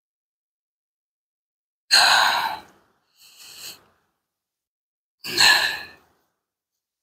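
A man sighing heavily: two loud breathy exhales about three and a half seconds apart, with a shorter, fainter one between them.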